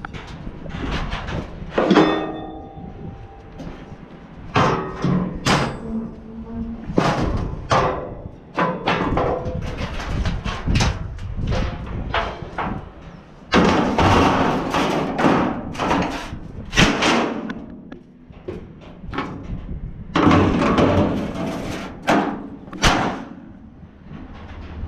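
Repeated metal clanks and bangs, with stretches of scraping, from the steel decks and perforated loading ramps of a car-transporter trailer being handled.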